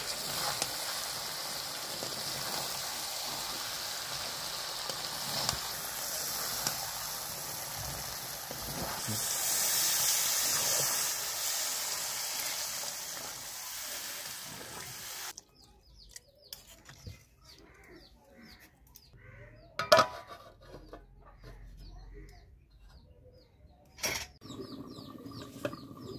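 Chicken curry sizzling and bubbling in a steel karahi, its gravy freshly thinned with water and stirred with a spatula. About fifteen seconds in the sizzle cuts off suddenly, leaving faint repeated bird chirps and two sharp knocks.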